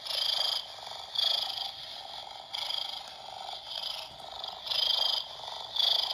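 Recorded cat distress sounds played from the small speaker of an 'emergency cat' toy, in short repeated bursts about once a second.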